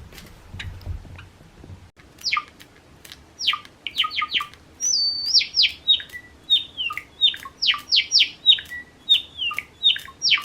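Java sparrow calling: from about two seconds in, a rapid run of short notes, each sweeping down in pitch, with faint clicks among them.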